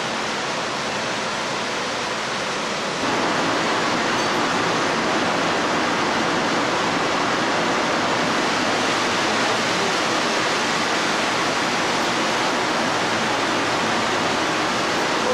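Steady hissing roar of several glassblowers' gas burner flames, growing louder about three seconds in.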